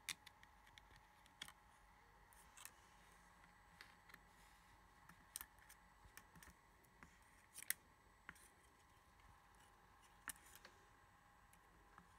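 Near silence with a dozen or so faint, sharp clicks and ticks at irregular intervals, from handling of the opened tablet and its parts, over a faint steady hum.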